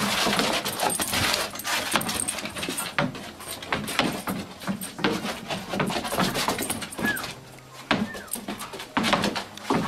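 Black Labrador playing with a tennis ball on a wooden deck: a run of knocks and scrabbles from the ball and the dog's paws on the boards, with a couple of short whines about seven seconds in.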